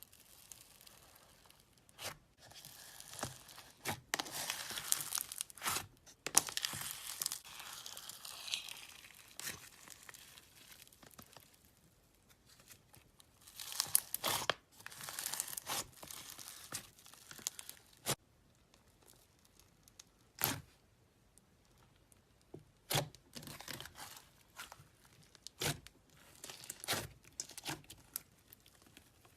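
Slime being stretched, squeezed and pressed by hand, making irregular stretches of crackling and a few sharp clicks, with quiet pauses between.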